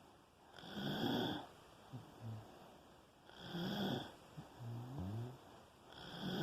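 Sleeper snoring in a steady rhythm: a loud snore about every three seconds, three in all, each followed by a softer, lower-pitched sound on the other half of the breath.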